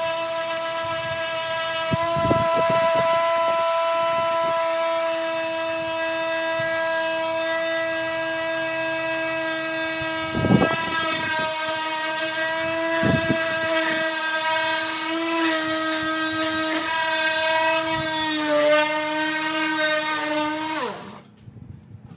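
Electric power sander running steadily on wood with a steady motor whine, a few knocks as it bumps the work, the loudest about ten seconds in. Near the end its pitch wavers and dips, then it winds down and stops about 21 seconds in.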